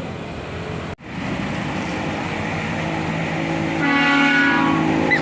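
Tour bus engine and road noise, then near the end a multi-tone telolet musical horn sounds a held chord for about a second, loud over the engine.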